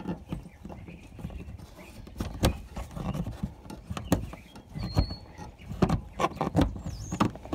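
Two steel screwdrivers clicking and scraping against each other and against a plastic push-pin retainer clip as they pry it up: a run of irregular clicks and knocks, with a short high squeak about five seconds in.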